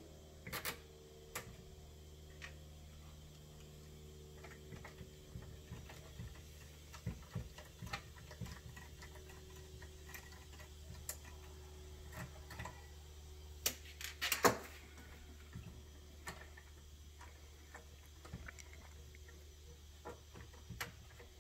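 Scattered small clicks and taps of a tool and hard plastic parts being handled while screws are taken out of an RC truck's front axle assembly, with the loudest cluster of clicks about 14 seconds in. A steady low hum runs underneath.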